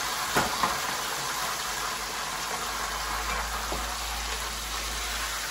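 Pieces of salt cod deep-frying in hot oil: a steady sizzle, with a couple of light clicks about half a second in.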